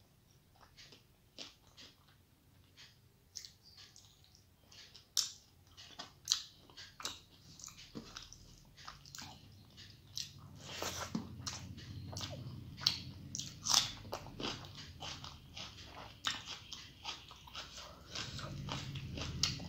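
Close-miked chewing of a mouthful of rice and mustard fish curry, with many wet mouth clicks and smacks that come thicker and louder in the second half. Fingers mixing rice on a steel plate add soft squishing.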